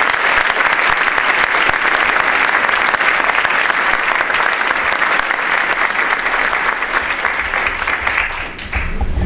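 Audience applauding in an auditorium, a dense steady clapping that thins out near the end.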